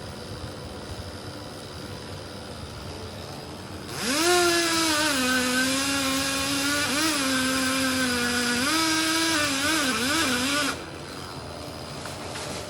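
Chainsaw running at high revs. Its pitch shoots up as it starts, about four seconds in, then dips and wavers the way a saw does under load in a cut, and it cuts off sharply after about seven seconds. Before it there is a steady low engine hum.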